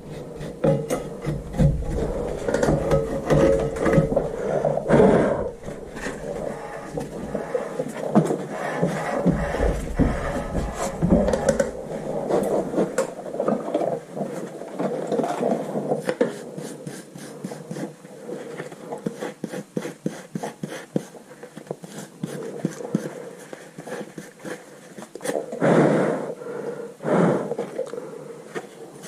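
Hand-tool work on a car's rear brake assembly: irregular scraping, rubbing and clicking of tools against brake parts.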